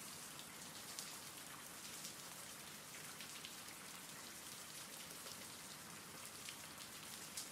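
Faint, steady rain falling, with light scattered drop ticks.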